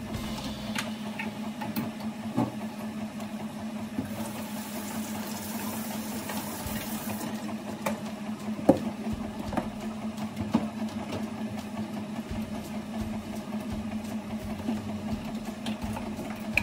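Steady hum of a running household appliance, with scattered clicks and knocks of things being handled.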